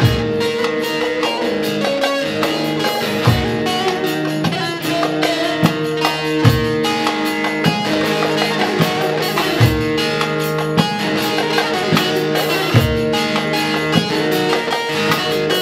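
Instrumental Turkish folk music: a bağlama (saz) picked in quick runs of notes over an electronic keyboard playing sustained chords, with a steady drum beat about once a second.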